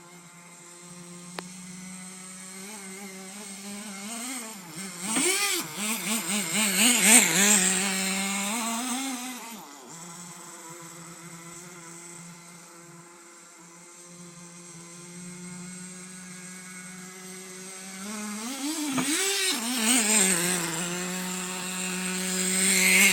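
Nitro two-stroke glow engine of a Hot Bodies Lightning 10 RC buggy idling steadily at a high pitch. It revs hard twice, about five to ten seconds in and again from about nineteen seconds to the end, its pitch swooping up and down with the throttle.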